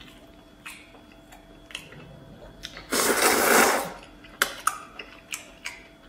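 A person slurps potato vermicelli noodles into the mouth with one loud, noisy rush lasting about a second, about three seconds in. Short, wet eating clicks come before and after it.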